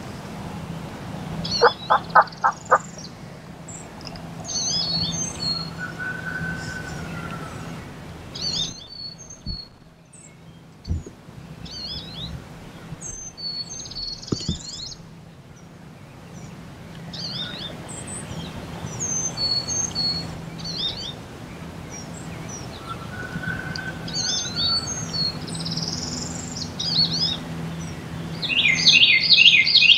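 Songbirds chirping and singing throughout, with a dense trill near the end. About two seconds in, five loud evenly spaced call notes.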